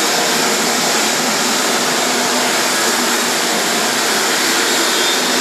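Electric rotary floor buffer running steadily, its pad abrading a hardwood floor, a constant motor and pad noise.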